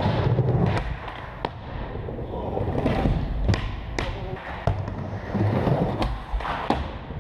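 Skateboard wheels rolling on a smooth skatepark floor, with several sharp, irregularly spaced clacks of boards popping and landing.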